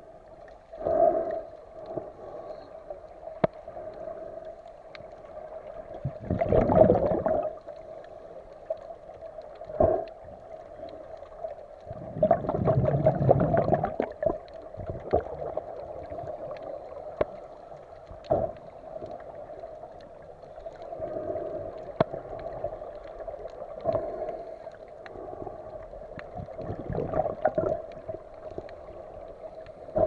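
Underwater sound of scuba exhalations: rushing bursts of bubbles from a diver's regulator every few seconds, over a steady hum. The longest bursts come about seven and thirteen seconds in.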